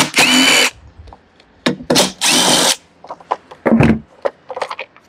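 Cordless impact driver backing out the screws of a Stihl BR 350 blower's starter cover, in short runs of about half a second each: one right at the start and one about two seconds in. Light clicks and a knock follow as the cover is handled.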